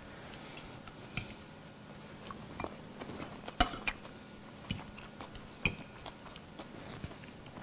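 Metal forks clinking and scraping on ceramic plates in a series of scattered light taps, the sharpest about three and a half seconds in and again near six seconds, with faint chewing between.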